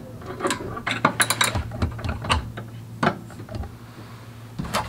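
Irregular metallic clicks and clinks of a socket wrench fitted with a stripped-bolt remover, working a stripped sway-bar end-link bolt loose. A run of quick clicks comes about one to two and a half seconds in, with a few more knocks near the end.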